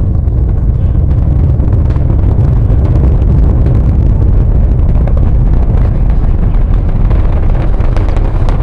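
Space Shuttle Discovery's solid rocket boosters and main engines during ascent: a loud, steady, deep rumbling roar shot through with crackling.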